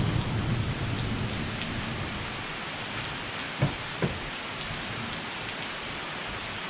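Steady rain falling on pavement, with a low rumble that fades over the first second or two. About halfway through come two short knocks as a pickup truck's door is unlatched and opened.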